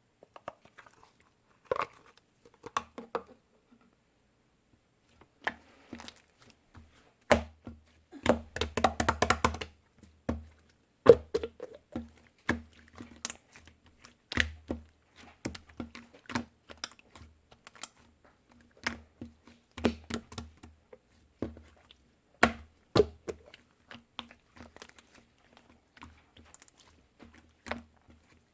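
Scattered taps, clicks and knocks of something being handled, with a quick run of rapid tapping about eight to ten seconds in.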